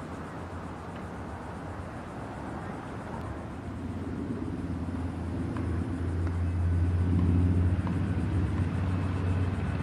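Diesel locomotive engine drone growing louder as the train approaches, loudest about seven seconds in, then easing a little.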